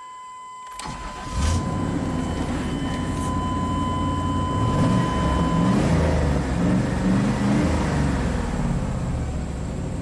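1998 Chevy Silverado 2500's 5.7-liter Vortec V8 cranking and starting about a second in, then idling. Cylinder five is still misfiring even with its cleaned, previously fouled spark plug back in.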